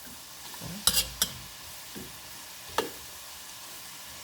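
Onions and bacon sizzling in a little oil in a frying pan, with a utensil knocking against the pan a few times as they are stirred, the sharpest knocks about a second in and near three seconds.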